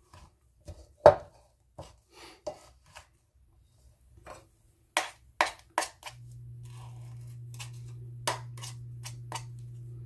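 Silicone spatula and metal spoon scraping and knocking against a ceramic mixing bowl while stirring a thick, stiff batter, in irregular clicks and taps. About six seconds in a steady low hum starts and keeps going underneath.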